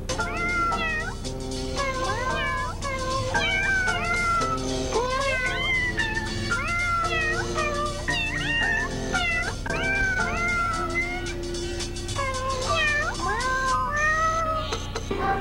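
A tune made of cat meows, one meow after another, over backing music.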